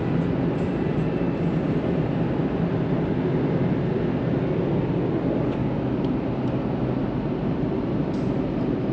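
Steady road and engine rumble heard inside a moving truck's cabin, an even low noise with no change in level.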